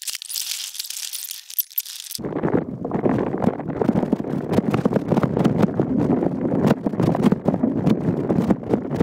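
A mountain bike ridden over rough, bumpy trail. It starts with a high hiss, then about two seconds in turns to dense, continuous rattling and clattering of many quick knocks.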